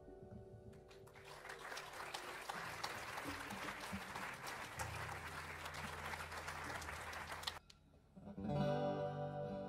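The last held notes of a flute-and-keyboard piece fade out, then audience applause for about six seconds, which cuts off suddenly. About a second later an acoustic guitar starts playing the intro of the next song.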